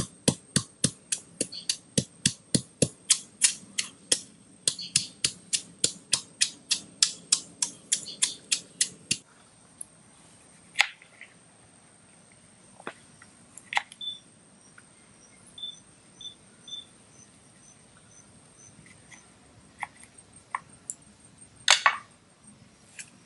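A stone pestle pounds chillies in a small mortar at about four strikes a second, then stops about nine seconds in. After that a knife knocks now and then on a wooden board as limes are cut, with a sharper double knock near the end, over faint high insect chirps.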